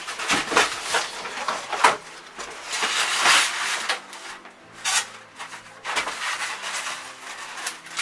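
Cardboard packaging being handled and pulled off a boxed appliance: irregular scraping and rustling rubs with a few sharp knocks, a longer stretch of scraping about three seconds in.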